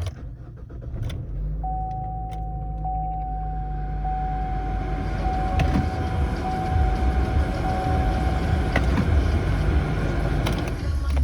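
Chevrolet Cruze started and idling with a steady low engine rumble. A dashboard warning chime repeats in one steady tone for about seven seconds, and a few sharp clicks come early on.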